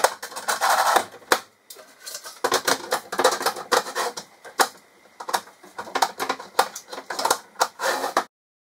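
Solid-wood sliding cabinet doors being handled and fitted into their tracks: a busy run of wooden knocks, clacks and rattles. It cuts off abruptly near the end.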